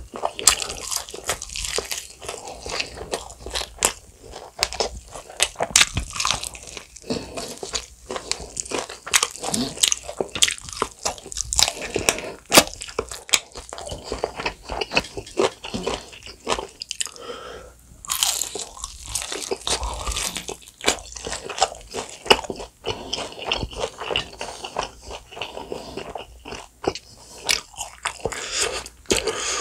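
A person biting and chewing bone-in fried chicken in a spicy sauce: crunches of the fried coating and chewing, many bites in quick, irregular succession. A short hiss about eighteen seconds in.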